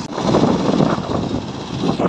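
Tractor diesel engine running under load as the tractor drives down the bank into a flooded, muddy paddy field, pulling a rear-mounted rotavator.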